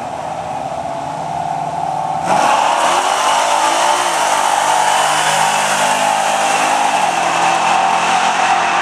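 Nitrous-equipped 1969 Chevy pickup's engine revving hard, then launching with a sudden loud surge about two seconds in and accelerating flat out. Its pitch climbs and drops back at gear shifts about four and seven seconds in.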